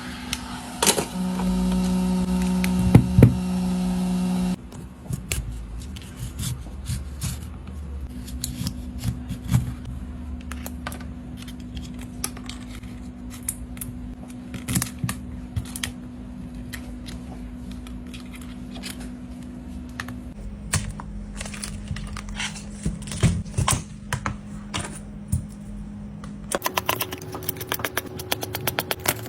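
Many small, irregular clicks and taps of hand tools working on a tablet during a screen repair, over a steady hum. A louder hum runs for the first four or five seconds.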